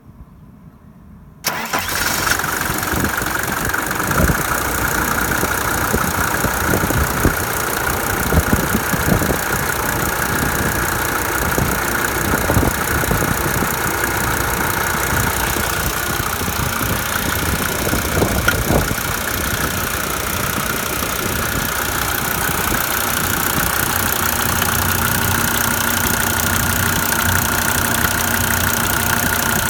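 Mercedes W124's OM605 five-cylinder diesel starting about a second and a half in and idling unevenly with irregular knocks. It is running rough, with an injector knock the owner has not cured by new injector nozzles and pump lines.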